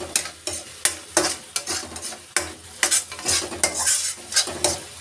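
Metal spatula scraping and stirring a thick onion-tomato masala paste as it fries in a steel kadhai. The scrapes are quick and irregular, about three a second.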